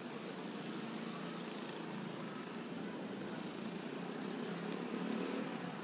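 A steady mechanical hum, like an engine running, with a hiss above it that brightens briefly about three seconds in.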